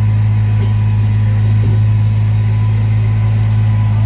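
Steady low engine hum of a vehicle moving slowly, heard from inside the vehicle's cab.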